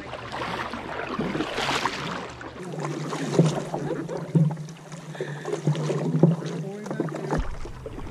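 Kayak paddles dipping and splashing through water, heard as swells of rushing noise with each stroke. Brief voices come in near the end.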